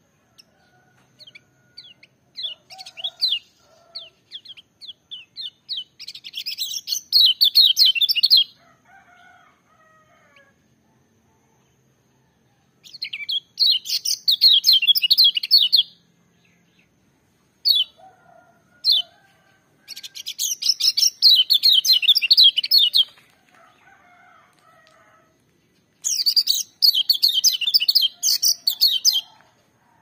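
Caged kecial kuning, a yellow white-eye, singing loud, shrill song: scattered chirps build into four bursts of rapid high chattering, each two to four seconds long, with two single sharp notes between the second and third bursts.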